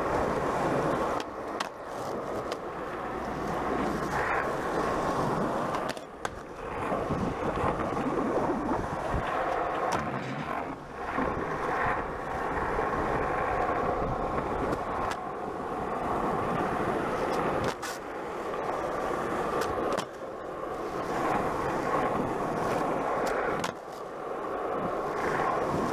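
Skateboard wheels rolling steadily on asphalt, with a few sharp clacks of the board now and then.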